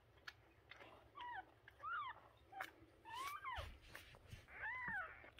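Newborn kittens mewing: four short, high-pitched cries that fall in pitch, spread across the few seconds, with faint clicks between them.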